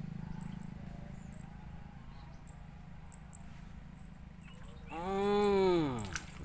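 A cow mooing once, a long call that rises and then falls in pitch, about five seconds in.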